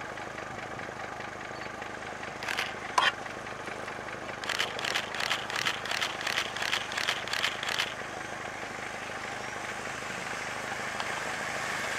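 Nissan Patrol 4x4 engine running steadily as the vehicle comes down a snowy track, slowly growing louder near the end as it draws closer. A single sharp crack about three seconds in, then a quick run of about a dozen crisp clicks in the middle.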